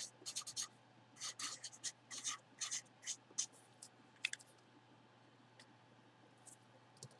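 Felt-tip marker writing in quick short strokes, faint, over the first few seconds, then it stops.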